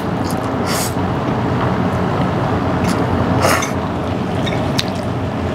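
Eating sounds over a steady background rumble: two short slurps of creamy carbonara pasta, about a second in and again about three and a half seconds in, and a light click near the end, typical of a fork on a ceramic bowl.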